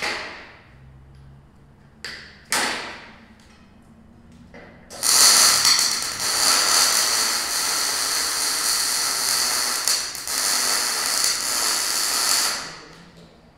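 Electric arc welding on steel: a loud, steady hiss starts about five seconds in, runs for about eight seconds and stops shortly before the end. Two or three sharp knocks come before it in the first few seconds.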